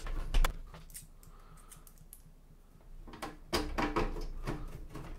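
Clicks, scrapes and light rattles of a screwdriver driving screws back into the side panel of a hi-fi unit's case: a few sharp clicks near the start, a quieter spell, then a busier run of clicking over the last two seconds.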